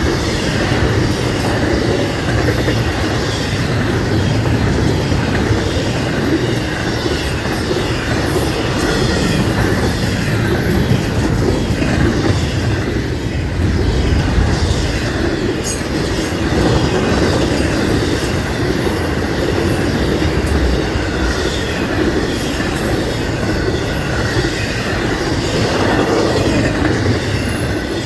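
Florida East Coast Railway freight train rolling past close by: a steady rumble of steel wheels on the rails, with clacking and some wheel squeal.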